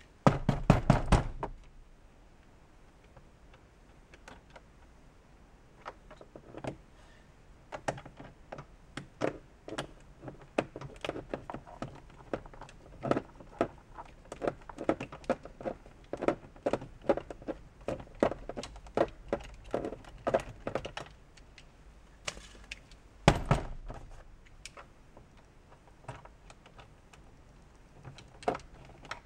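Hex driver clicking and knocking as it works the fasteners out from under the armrest of a plastic car door trim panel, in scattered sharp taps. A louder rattling clatter comes near the start and again about three-quarters of the way through.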